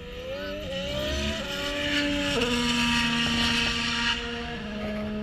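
Racing engine on the circuit, rising in pitch through the gears with sudden drops at the shifts, getting loudest about three seconds in as it passes, then droning on more steadily.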